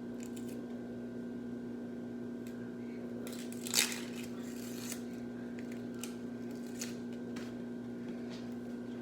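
Steady low hum with a few light clicks and handling noises of kitchen things being moved, and one brief, louder rustle or scrape about four seconds in.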